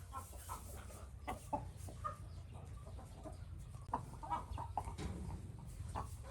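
Chickens clucking, many short calls overlapping, over a steady low background rumble with a few sharp clicks.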